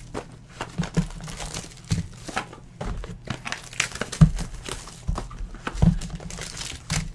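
Trading-card hobby boxes being handled and opened by hand: crinkling of wrapper and foil-pack packaging, with irregular light taps and scrapes of cardboard.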